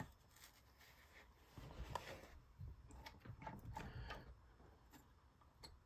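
Faint, irregular small clicks and rustles of leather and fur being handled and fitted into a fur sewing machine's feed wheels.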